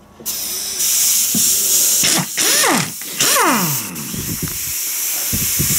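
Air impact gun running on a nut, with a loud hiss of exhaust air; twice its motor pitch sweeps down steeply as it slows.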